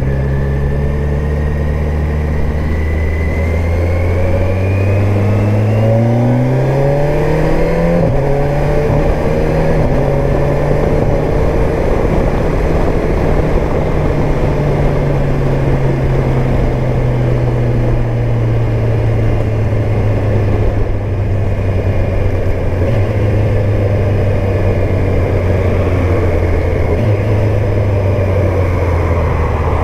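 Kawasaki Versys 1000 S inline-four engine under way, with wind noise: it revs up for a few seconds, drops in pitch at a gear change about eight seconds in, then holds a steady, slowly falling note at cruising speed.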